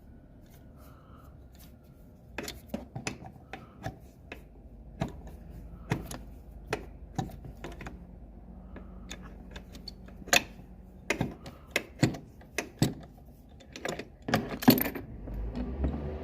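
Irregular metallic clicks and knocks of hand tools and parts being handled during a spark plug change on a Suzuki Address 125 scooter. A low hum comes in near the end.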